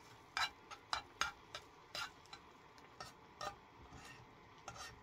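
Metal utensil stirring scrambled eggs in a small camp frying pan, clicking and scraping against the pan in irregular sharp taps, about two a second.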